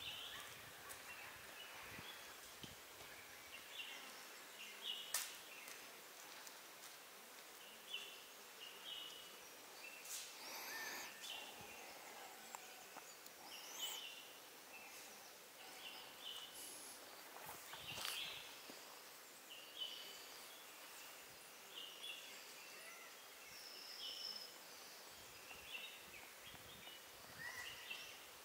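Faint forest ambience: scattered short bird chirps and calls over a soft background hiss, with a few sharp clicks.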